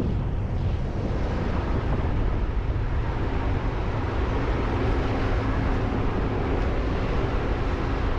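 A motor vehicle running steadily, with wind buffeting the microphone; a faint steady hum comes in a couple of seconds in.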